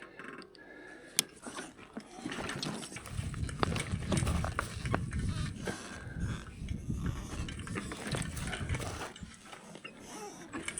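A person on foot on a steep stony trail: irregular scuffing footsteps and knocks of carried bags, with hard breathing from about three seconds in.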